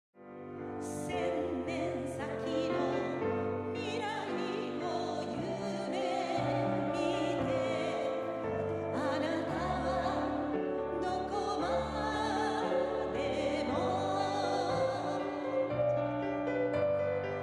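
A song with a sung vocal over piano and held accompaniment, fading in from silence at the start.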